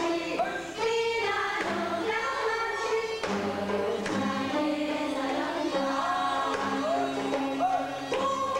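Korean folk song sung by a group of women in unison to their own gayageum accompaniment (gayageum byeongchang), the twelve-string zither plucked under the voices, with strokes of a janggu hourglass drum. The voices bend and waver on their held notes.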